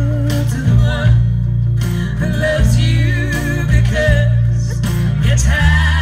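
Folk band playing live through a PA system: guitars and banjo over a strong low end, with a voice singing long, wavering notes from about two seconds in.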